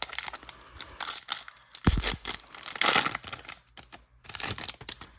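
Hockey card pack wrapper being torn open and crinkled, an irregular crackling rustle, with a single dull thump about two seconds in.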